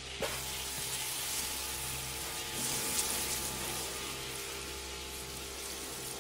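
Pressure washer spraying water onto a truck cab: a steady hiss that swells briefly a few times, over a low steady hum.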